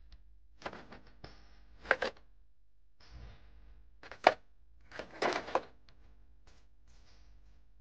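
Hard plastic toy jeep knocking and scraping against the plastic bed of a toy dump truck: scattered short clatters, the sharpest about two seconds in and just past four seconds, with a burst of rattling around five seconds.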